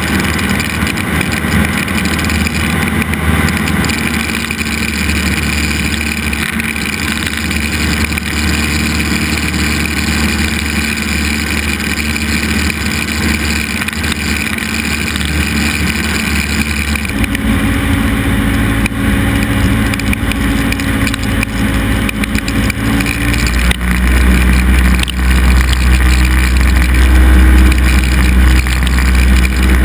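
Cessna 172's piston engine and propeller droning steadily, heard inside the cockpit, during the approach to landing. The engine note changes about halfway through, and a deeper rumble grows louder over the last few seconds as the plane comes down near the runway.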